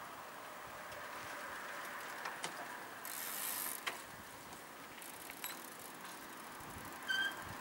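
Bicycle coasting up and coming to a stop: faint freewheel ticking and a few light clicks, with a brief hiss about three seconds in. A short, high ringing tone sounds near the end.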